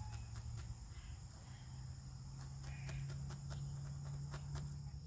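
Crickets chirring steadily over a low steady hum, with faint irregular clicks from a felting needle poking through wool into a foam pad.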